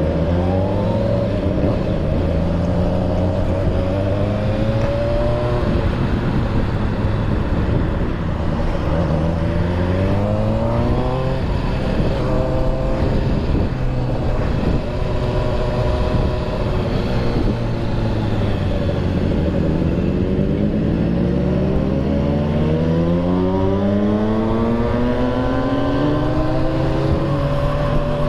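Motorcycle engine under way, pulling up through the revs in repeated rising sweeps and dropping back between them, with one long climb in the second half, over steady wind and road noise.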